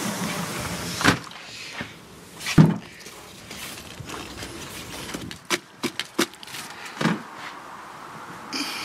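Hard knocks and a scraping rustle as a container of spent coffee grounds is tipped and tapped against a plastic planter to empty it. The loudest knock comes about two and a half seconds in, and a quick run of three knocks comes around six seconds.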